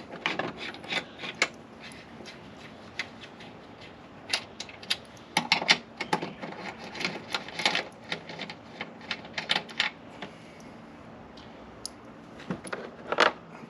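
Hand tools undoing 12 mm bolts on a metal shield: bursts of sharp metallic clicks and clinks, coming in clusters with short pauses between.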